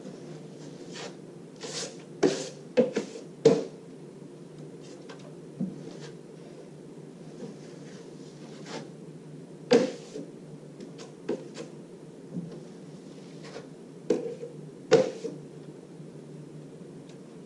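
Steel taping knife scraping joint compound across plasterboard joints and against a hawk during the finish coat, with sharp metal clacks in three short clusters over a steady low hum.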